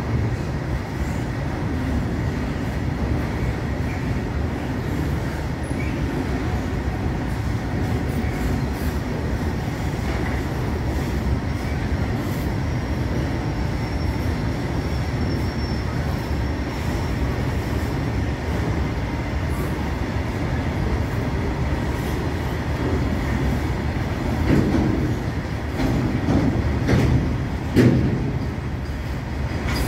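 Freight train's open-top wagons rolling past: a steady rumble of steel wheels on the rails, with a few louder knocks near the end.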